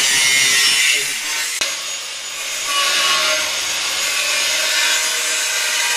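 Angle grinder cutting through a metal sliding-panel rail: a steady motor whine with a harsh grinding hiss. It eases off briefly about a second in, with a sharp click, and bites in hard again from about three seconds in.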